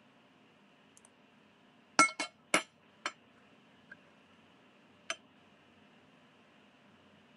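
Metal spoon clinking against a dish while scooping up rice: four sharp clinks in quick succession about two seconds in, then one more about two seconds later.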